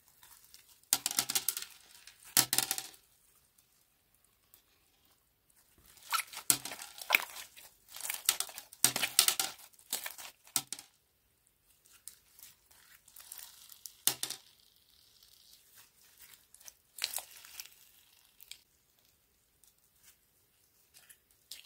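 Silver glitter slime packed with sprinkles being squeezed and kneaded by hand, giving bursts of crackling, popping clicks in clusters with quieter gaps between.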